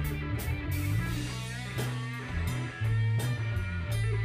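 Live blues-rock band playing without vocals: electric guitar lines with bent notes over a bass guitar's low notes and a drum kit with regular cymbal hits.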